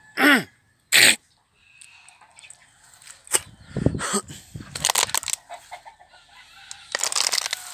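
A chicken squawking twice in quick succession: a short loud call that falls in pitch, then a second loud burst. After that comes a stretch of rustling and crackling from leaves and stems being handled, busiest near the end.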